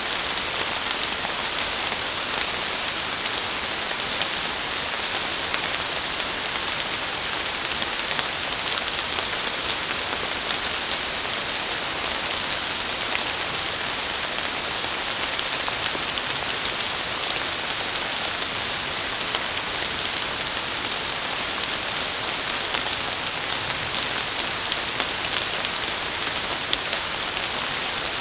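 Steady rain falling in a forest: an even hiss sprinkled with many separate sharp drop hits.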